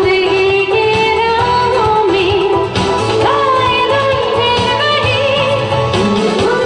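Live band music with a woman singing long, gliding held notes over it.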